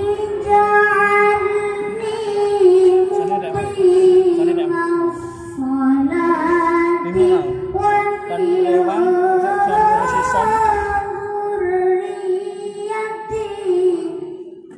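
A young boy reciting the Qur'an in melodic qiraah style into a microphone over a sound system. His voice holds long, drawn-out, ornamented lines with brief breaths, climbs higher about ten seconds in, and the phrase ends just before the close.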